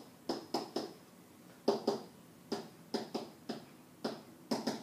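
Marker writing on a whiteboard: about a dozen short, sharp strokes and taps in quick irregular groups as the letters are written.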